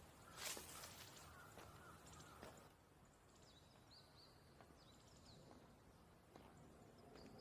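Near silence: faint outdoor ambience with a few quiet, high bird chirps in the middle and a brief soft burst of noise about half a second in.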